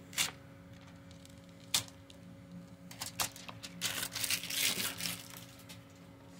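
Clear plastic protective film peeled off a replacement laptop battery and handled, a scatter of crinkling, crackling rustles and clicks that is busiest about four to five seconds in, over a faint steady hum.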